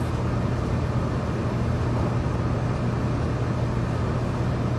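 Cabin noise of a 700 series Rail Star Shinkansen train running at speed: a steady rumble with a low, even hum underneath.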